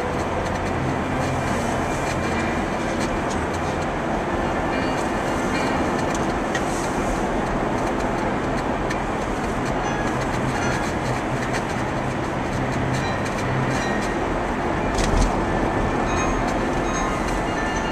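Steady tyre and engine rumble of a car driving through a road tunnel, heard from inside the cabin, with a single thump about fifteen seconds in.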